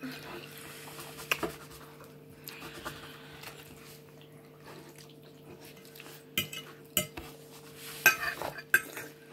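Fork clinking and scraping on a plate while eating lasagna, with scattered sharp clinks that come closer together near the end. A steady low hum runs underneath.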